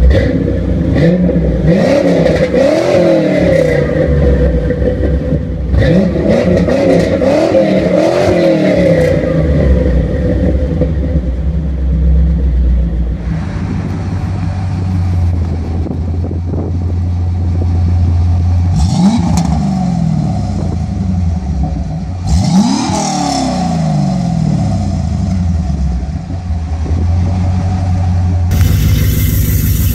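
A 1991 Chevrolet Corvette C4's V8 through a Flowmaster exhaust, revved up and down repeatedly in two bursts. Then a second C4 Corvette's V8 on its stock exhaust idles and is blipped twice, sharply. Near the end the sound switches abruptly to another, louder Corvette exhaust.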